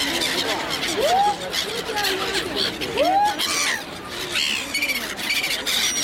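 A flock of black-headed gulls calling over one another, many short overlapping cries, with a few louder rising-and-falling calls. People's voices mumble underneath.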